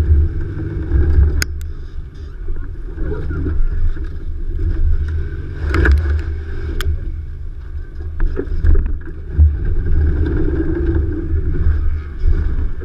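2015 Nissan Xterra Pro-4X working through an off-road trail: a steady low engine rumble with a few sharp knocks, about a second and a half in and again around six and seven seconds in.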